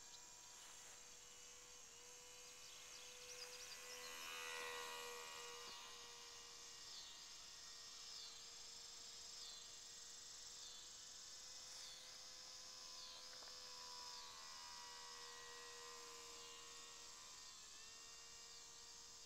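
Faint steady whine of the E-flite Curtiss N9 model biplane's electric motor and propeller, swelling briefly about four seconds in as the plane passes closer. High insect chirps pulse about once a second underneath.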